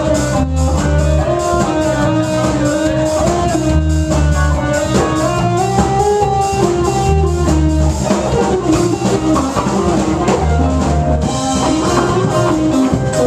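Live band playing loudly: electric guitar, electric bass and drum kit in a steady groove, with bass notes repeating in a pattern about every two seconds.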